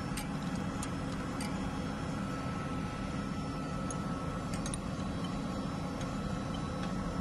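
Steady drone of running engine-room machinery, with a few light metallic clicks as a spanner works the leakage pipe fitting on a diesel generator's fuel injection valve: three in the first second and a half, and two more close together about four and a half seconds in.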